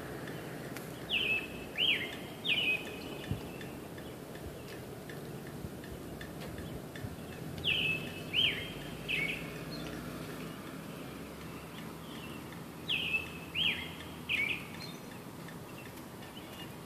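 A bird calling three times in groups of three short notes, each note dropping in pitch and then levelling off, the groups about six seconds apart, over a steady low background rumble.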